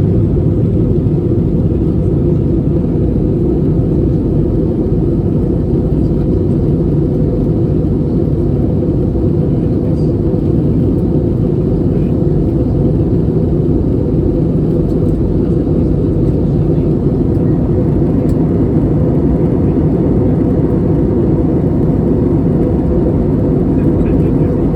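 Steady loud rumble of an Airbus A320neo's Pratt & Whitney PW1100G geared turbofan engines and airflow, heard inside the passenger cabin.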